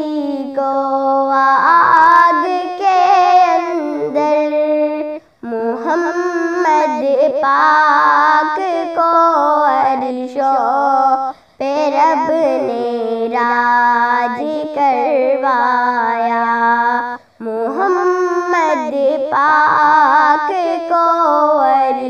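A girl singing a naat, an Urdu devotional poem in praise of the Prophet Muhammad, unaccompanied. She sings in long, ornamented phrases with short breath pauses about every six seconds.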